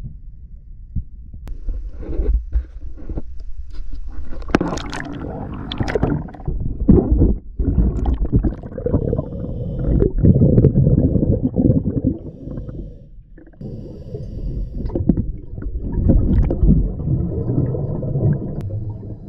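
Underwater sound of scuba divers breathing: muffled gurgling and rumbling surges of exhaled bubbles from the regulators, coming every few seconds.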